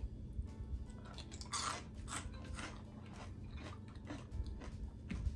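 A person chewing fried restaurant food close to the microphone, with irregular crunching bites, the loudest crunch about a second and a half in.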